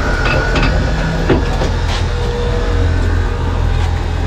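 A small trawl boat's engine and trawl winch running as the trawl cables are hauled in: a steady low drone, with a few knocks in the first two seconds.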